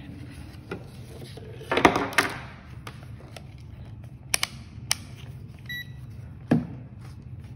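Digital multimeter being handled and its rotary selector dial turned, giving scattered clicks. A short high beep from the meter comes a little before six seconds in, and a knock follows soon after.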